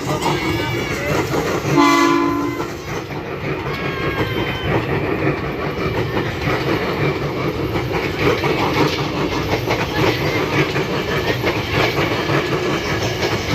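Tokyo Metro 6000-series electric commuter train giving one horn blast of about a second, about two seconds in, then running past with a steady rumble and clickety-clack of wheels over the rails and points.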